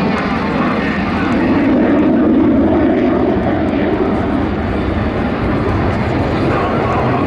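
Jet engine roar of a Polish Air Force F-16 fighter, a Pratt & Whitney F100, flying its display: a loud, steady, deep rumble that swells slightly a couple of seconds in.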